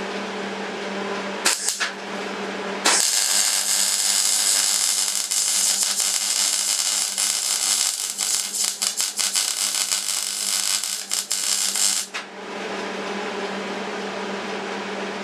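Electric arc welding on the broken metal frame of an office chair: a short crackling burst about one and a half seconds in, then a continuous crackling weld of about nine seconds that stops abruptly. A steady hum runs underneath.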